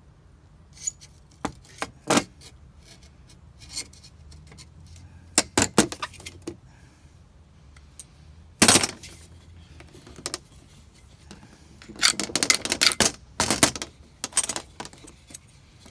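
Hand tools and a hand vise working a stuck plastic window corner part loose: irregular sharp metallic clicks, taps and rattles, with a longer run of rapid clattering about twelve seconds in.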